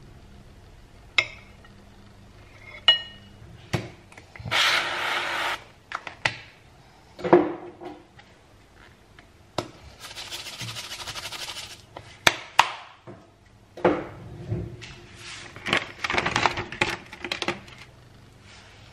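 Food preparation at a counter: a table knife clinking against a ceramic plate and scraping over toast, with a few sharp taps and three longer stretches of scratchy scraping and rustling.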